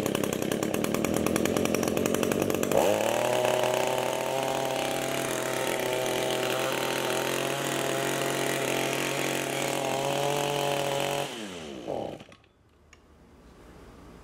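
Two-stroke engine of an Echo HC-155 gas hedge trimmer running, just reassembled. About three seconds in the throttle is opened and it runs at a higher, steady pitch. At about eleven seconds it is shut off and winds down to a stop.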